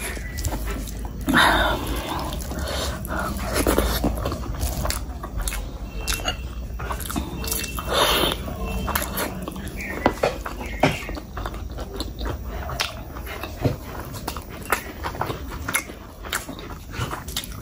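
Close-up eating sounds: wet chewing and lip smacking of rice and curry eaten by hand, with squelching as fingers mix the rice into the curry. Louder mouthfuls come about a second and a half in and about eight seconds in.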